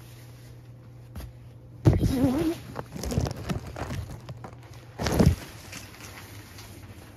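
A domestic cat gives a loud, wavering meow about two seconds in, followed by rustling and a short loud noise about five seconds in.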